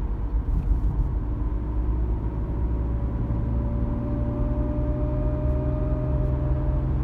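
BMW E36 being driven, with a howl from the driveshaft's centre support bearing that rises slowly in pitch over the road and drivetrain rumble. The howl is the sign of a faulty aftermarket centre bearing, which howls from about 40 km/h while the car is cold.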